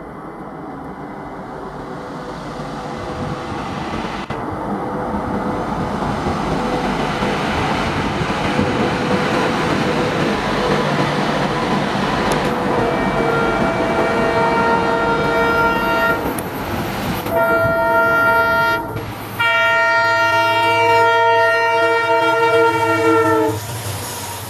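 Passenger train running past with a dense rumble that grows steadily louder. About halfway through, a locomotive horn sounds in three long multi-tone blasts, the last dropping slightly in pitch as the train passes, then cutting off just before the end.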